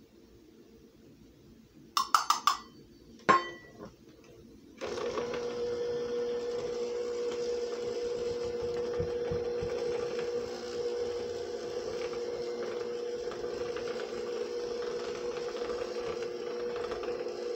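A few sharp clicks and knocks, then about five seconds in a KitchenAid electric hand mixer starts and runs steadily with an even hum, its beaters working powdered sugar into thick cream cheese frosting.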